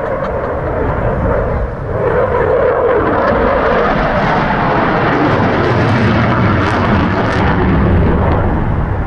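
Loud jet noise from an RAF Eurofighter Typhoon's twin Eurojet EJ200 turbofans as the fighter makes a high-speed pass. In the first few seconds a tone within the rush sinks in pitch, then a deep rumble takes over.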